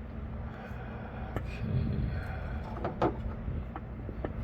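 A few light clicks and knocks of handling, spaced out, over a low steady hum.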